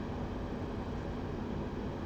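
Steady, low background noise with no separate events, like room or fan noise.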